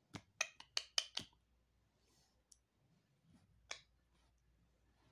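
Sharp clicks and taps of a rose-ringed parakeet's beak pecking at a hard green toy parrot: a quick run of about seven in the first second or so, then one more a few seconds later.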